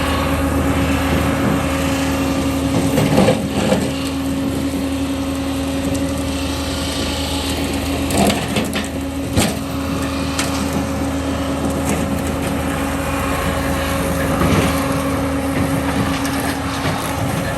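A mowing machine's engine running steadily, with several sharp cracks and crunches of wood being broken up, loudest about three, eight and nine and a half seconds in.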